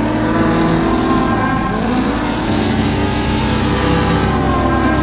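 Drift car engine revving up and down with the throttle as the car slides sideways, over a steady haze of tyre and wind noise.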